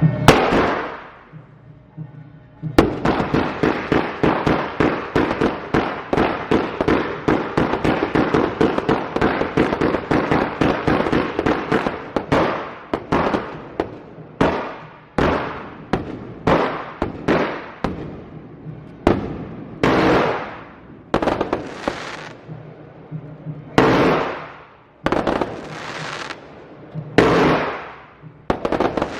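Fireworks going off in a continuous salvo of loud bangs. After a short lull near the start, there is a rapid, dense string of bangs for about nine seconds. Then come separate booming bursts about a second apart, each fading off.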